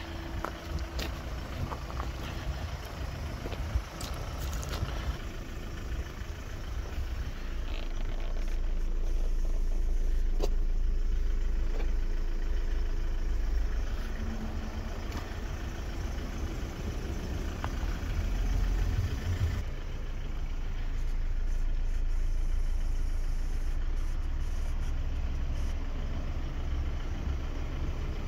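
Wind buffeting the microphone as a low, uneven rumble, with occasional light knocks and clicks from the phone being handled.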